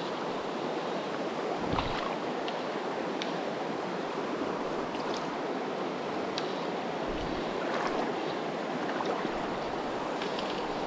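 Steady rush of a shallow, rocky river flowing over riffles, with a few faint ticks.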